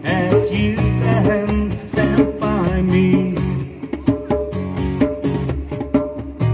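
Live band music: a djembe played with the hands, with acoustic guitar strumming and a melodic line over it.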